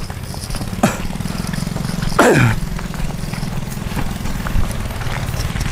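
Small boat engine running steadily. About two seconds in there is a brief sound that slides down in pitch, and there is a single click shortly before it.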